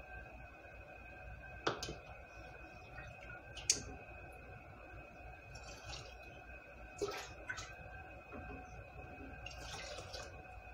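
Water being ladled from a pot into glass canning jars of rice: short splashes and drips, with a few sharp clinks, over a steady faint hum.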